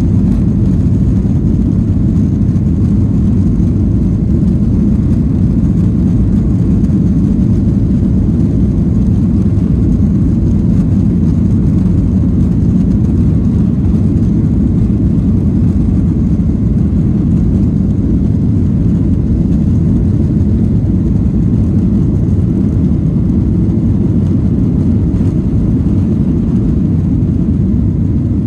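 Boeing 737 on its takeoff roll, heard from inside the cabin over the wing: a loud, steady low rumble of the jet engines at takeoff thrust and the wheels on the runway.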